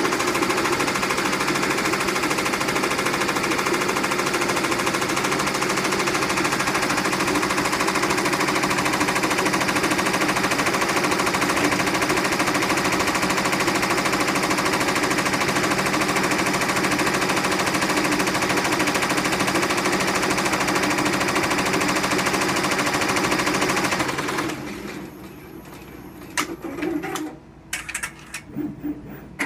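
Four-head Happy commercial embroidery machine stitching logos onto jackets: a loud, fast, steady rattle of the needles that stops about 24 seconds in, followed by a few sharp clicks.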